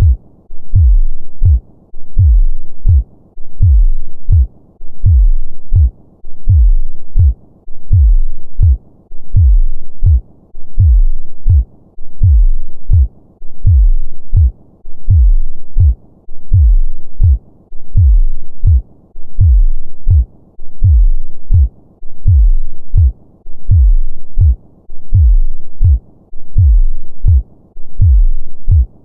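Normal human heartbeat: deep, low thuds in a slow, steady, even rhythm.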